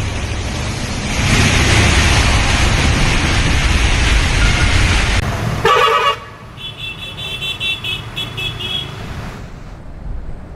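A car driving through deep floodwater: a loud steady rush of splashing water and engine noise for about five seconds. Then a vehicle horn toots once briefly, followed by a quick string of short high beeping toots over quieter traffic on a flooded road.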